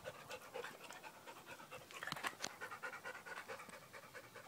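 A Brittany dog panting with its mouth open.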